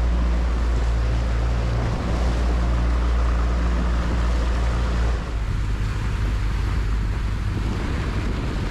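Mercury outboard motor running steadily as the inflatable boat moves over open sea, a low hum under the rush of wind and water past the hull. The sound changes character about five seconds in.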